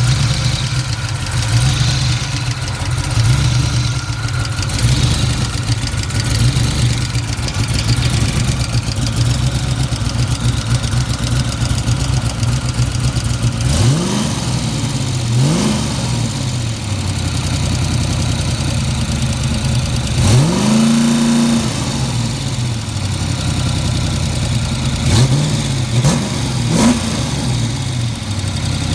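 Fox-body Ford Mustang engine idling, blipped several times: two short revs about halfway through, a longer one held for about a second, then three quick blips near the end. The owner is unsure whether the knocking noise in it is rod knock or lifter tick.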